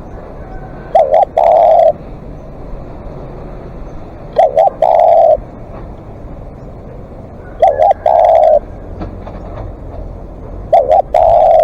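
Spotted dove cooing: four calls about three seconds apart, each two short coos followed by a longer, drawn-out coo.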